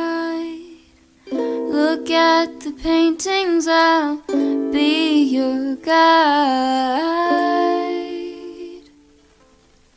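Background music: a light tune with a plucked-string accompaniment and a gliding melodic lead. It breaks off briefly about a second in and fades out near the end.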